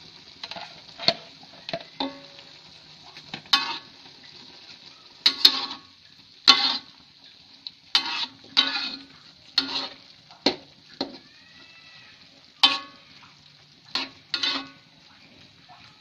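Metal spatula stirring in a wok, scraping and knocking against the pan about once a second at an irregular pace, some strokes ringing briefly. Underneath is a steady, faint simmering hiss from the boiling taro-stem stew.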